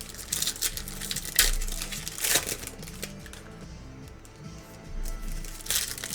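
Foil trading-card pack wrappers crinkling in several bursts as packs are torn open, over background music.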